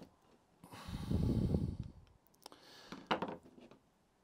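A man breathing out heavily once, about a second long, then a fainter short sound about three seconds in.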